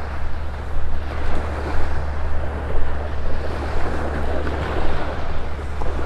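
Wind buffeting the phone's microphone with a steady low rumble, over small Gulf waves washing onto the sandy shore.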